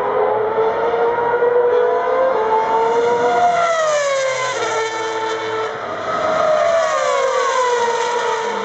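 Formula 1 cars running at high revs on the circuit, their high-pitched engine note carrying throughout. Cars pass with the pitch dropping as they go by, about three seconds in and again about seven seconds in.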